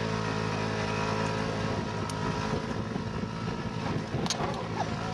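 An engine running steadily at a constant pitch, with wind on the microphone and a short sharp sound about four seconds in.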